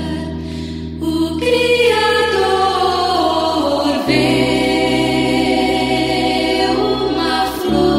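Brazilian gospel song: a vocal group singing in held harmony over instrumental backing, with a falling melodic line in the first half and a change of chord about four seconds in and again near the end.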